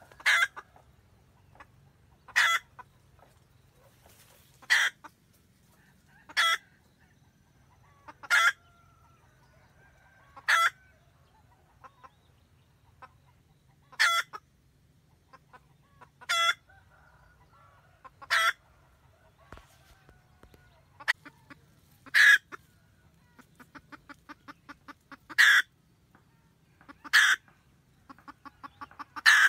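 Red junglefowl hen cackling to call the cock: a short, loud call about every two seconds, with quick runs of soft clucks leading into the last few calls.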